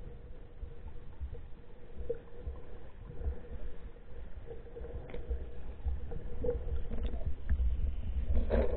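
Muffled underwater river sound picked up by a submerged camera: a low rumbling water noise with a faint steady hum and a few faint clicks, getting louder near the end.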